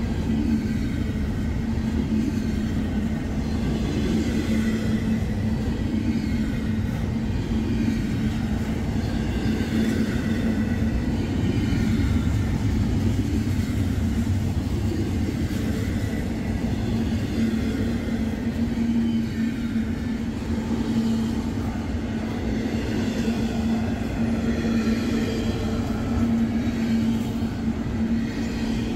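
Double-stack intermodal freight train rolling past close by: a steady rumble of the container cars' wheels on the rails, with a steady low tone running under it.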